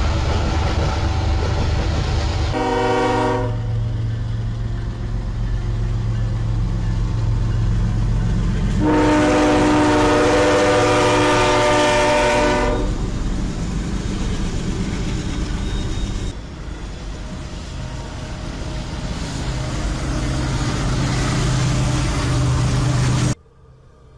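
Diesel freight locomotive horn sounding over the steady rumble of a passing freight train: a short blast about three seconds in, then a long blast of about four seconds near the middle.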